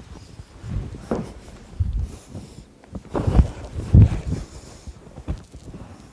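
Two aikido practitioners kneeling on a mat, with a few dull thumps and cloth rustles as one is taken down and pinned face-down in a nikyo hold.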